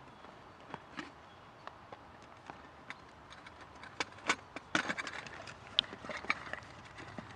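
Scattered light clicks and knocks of a titanium mug cook set being handled and opened, busier from about four seconds in.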